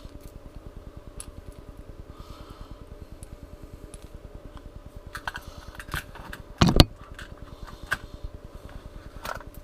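Fishing lures and tackle being handled: scattered small hard clicks and rattles, with one louder thump about two-thirds of the way through. Under them runs a steady, fast-fluttering background hum.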